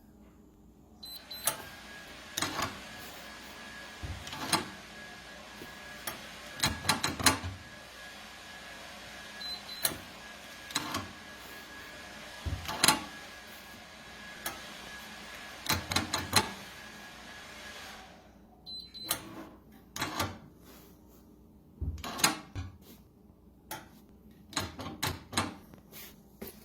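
Clicks and knocks of a steel safe being handled, some in quick clusters, over a steady hiss that stops about two-thirds of the way through.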